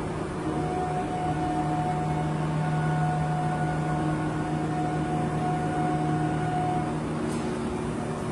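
Vacuum membrane press machine running with a steady mechanical hum and a few held tones, one of which stops about seven seconds in, followed by a short click.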